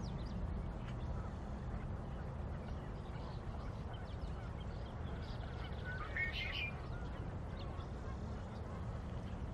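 Faint bird calls over a steady low background rumble, with one brief burst of chirping about six seconds in.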